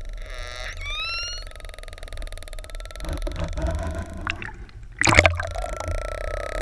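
Killer whale call heard underwater: a short buzzing pulse about half a second in that sweeps up into a rising call with several overtones, then a thin steady tone. A loud sudden crackle about five seconds in, over steady water noise.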